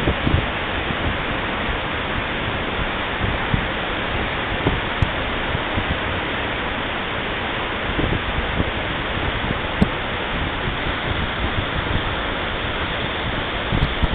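Roaring River Falls, a powerful waterfall pouring through a rock chute into its plunge pool, heard close up as a steady, dense rush of falling and churning water.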